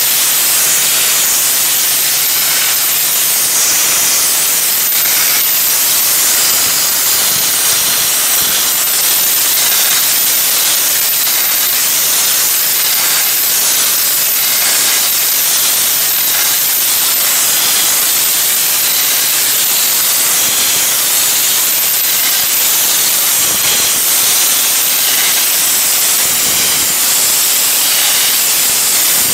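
Dry-ice blasting gun firing a continuous jet of compressed air and dry-ice pellets against wooden siding: a loud, steady hiss as it strips an old wood-glaze coat off the boards.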